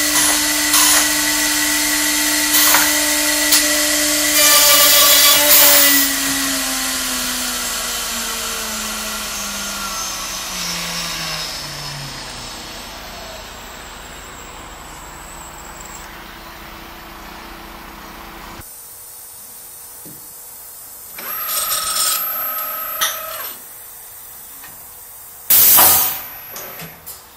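A CNC handrail drill's high-speed router spindle runs and plunges a bit into a wooden handrail for the last few holes, each cut a short, loud burst. The spindle then switches off and winds down, its pitch falling steadily over about six seconds. Later comes a short motor whir and, near the end, a brief loud burst of noise.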